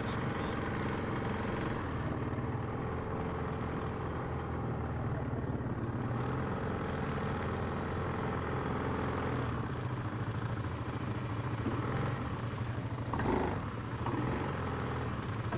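ATV engine running steadily at low revs, with a brief louder sound about 13 seconds in.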